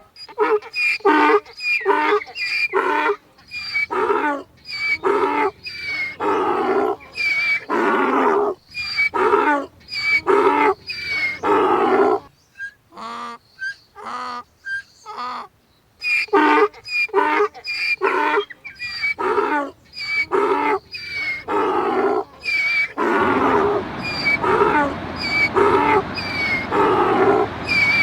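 Donkey braying: a long run of rhythmic hee-haws, the calls repeating quickly back and forth, with a quieter lull about halfway through before the braying starts again.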